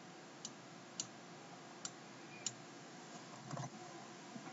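Four faint, sharp computer keyboard keystrokes, spaced about half a second to a second apart, over a steady low hiss. A softer, duller rustle comes about three and a half seconds in.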